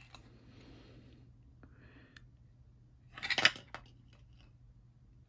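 A brief cluster of clicks and knocks, about three seconds in, from the plastic driver housing and finned light panels of an LED flood light being handled and turned over. Otherwise only a low steady hum.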